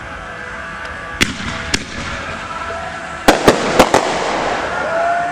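Fireworks going off: two sharp bangs about half a second apart, then, about three seconds in, a quick cluster of four louder bangs.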